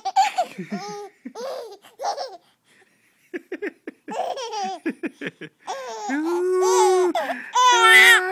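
Baby laughing in bursts, with a short pause partway through, a quick run of breathy little pulses, then a long drawn-out laughing squeal near the end.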